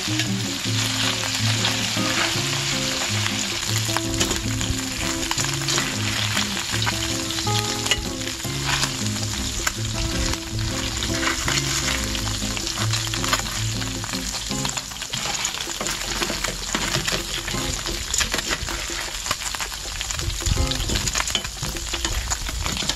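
Chicken pieces and chicken liver sizzling as they fry in a stainless-steel Saladmaster electric skillet, with metal tongs clicking against the pan as pieces are lifted out. Background music plays under the sizzle for about the first two-thirds.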